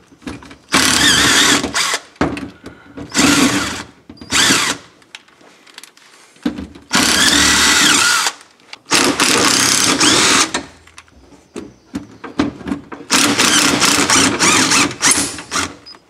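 Hitachi cordless driver running in several short runs of a second or two each, backing screws out.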